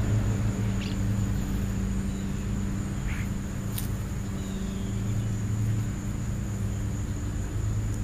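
A steady low hum like a running motor, with a thin steady high whine above it. Birds give a few short chirps about a second in and again about three seconds in, and there is one sharp click shortly after.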